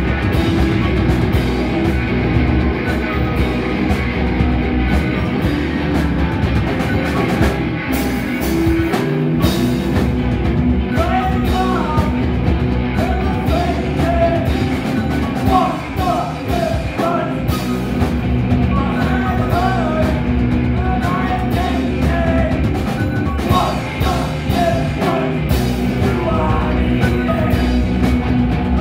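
Live rock band playing with electric guitars and a drum kit; the lead vocal comes in about eleven seconds in and carries on over the band.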